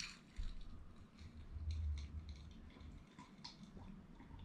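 Faint sips and swallows from a glass of drink, with a few light clicks and a brief low rumble about halfway through.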